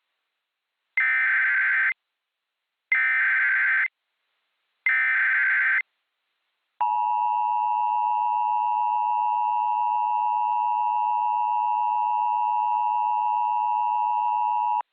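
Emergency Alert System tones: three one-second SAME header data bursts with a raspy digital warble, a second apart, then the EAS attention signal, a steady two-tone 853 and 960 Hz alarm held for about eight seconds that cuts off abruptly.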